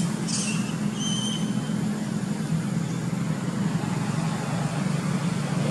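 A steady low motor rumble, like an engine running nearby. A short high-pitched chirp comes about half a second in, followed by a thin high tone.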